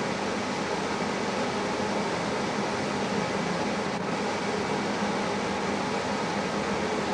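Variable-speed electric blower running steadily, a constant rush of air with a low hum underneath.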